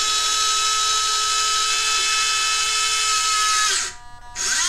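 Small electric geared motor in a radio-controlled 1/16 Cat compactor model, running with a loud, steady whine. It winds down and stops near the end, then starts up again.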